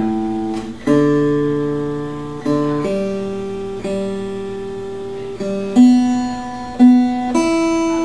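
Seagull Entourage Grand parlor acoustic guitar played slowly: about seven chords, each struck and left to ring and fade before the next.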